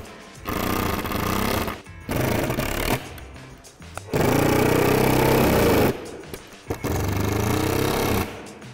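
Cordless impact driver hammering screws home, in four bursts of one to two seconds each with short pauses between. Soft background music runs underneath.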